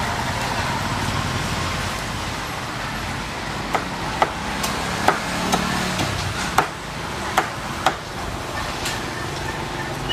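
Street ambience with steady traffic noise, and a string of sharp clicks in the middle.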